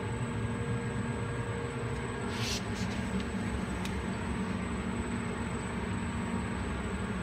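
Steady low machinery hum of the powered-up stamping line's control cabinet and equipment, with a faint high whine. A short hiss comes about two and a half seconds in and a faint click near four seconds.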